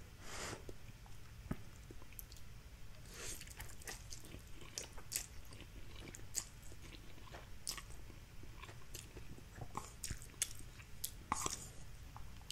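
A person eating instant noodles with chopsticks: slurping noodles into the mouth and chewing, heard as a scattered run of short mouth clicks and smacks with a few brief slurps.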